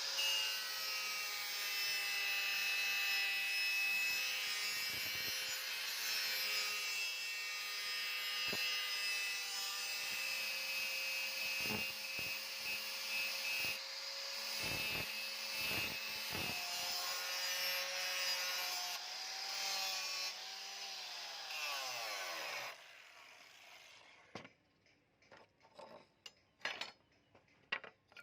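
Electric grinder running at a steady speed, grinding a steel sword blade with a rasping rub. About twenty seconds in it is switched off and its pitch falls as it winds down, and a few faint clicks follow.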